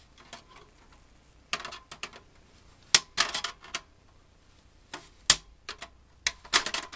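Irregular sharp clicks and short metallic rattles in small clusters, the sharpest about three and five seconds in: a cable box's sheet-metal chassis being handled as its retaining tabs are worked loose.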